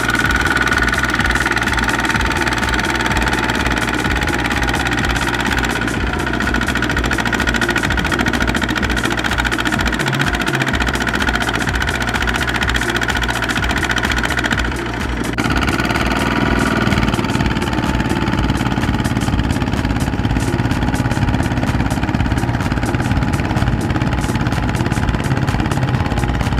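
Single-cylinder diesel engines of Kubota two-wheel tractors running hard under load, one hauling a rice-laden trailer stuck in mud while a second pushes it from behind. The engine sound shifts abruptly about halfway through.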